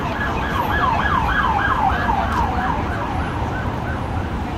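Emergency vehicle siren in a fast yelp, sweeping up and down about three times a second and fading out near the end, over a steady rumble of road traffic.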